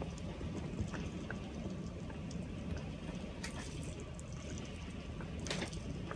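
Typhoon rain and wind: a steady rushing noise with a low rumble, broken by scattered sharp taps and splashes, a few of them louder.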